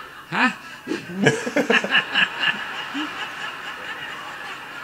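A man chuckling: a quick run of short laughs, about three or four a second, between about one and three seconds in.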